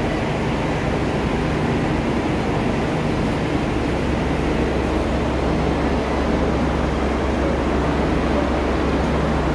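Steady hum and rumble of a stationary diesel railcar train idling, its low drone growing stronger about halfway through.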